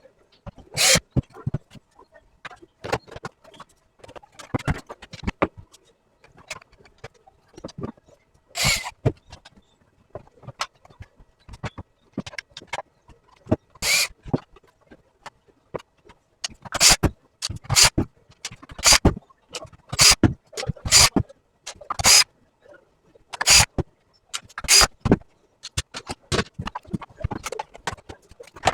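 Irregular sharp clicks and knocks from the hard plastic parts of a Viomi robot vacuum being handled and worked on, sparse at first and coming thicker and louder in the second half.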